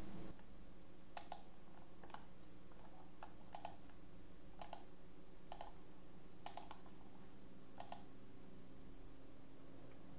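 Computer mouse clicks, single and in quick pairs like double-clicks, about ten spread irregularly through, over a faint steady hum.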